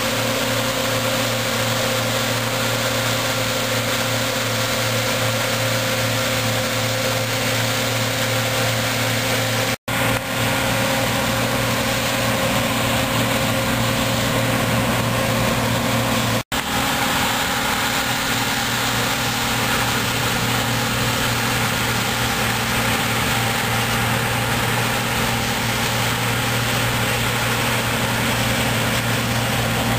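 John Deere C670 combine harvester running steadily while cutting and threshing oilseed rape: a constant engine and machinery hum. Two brief gaps break it, about ten and sixteen seconds in.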